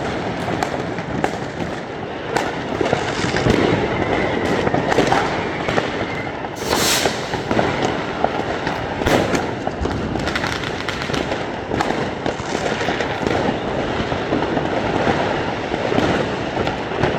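Fireworks and firecrackers going off all around in a dense, continuous barrage of crackling and bangs, with one especially loud burst about seven seconds in.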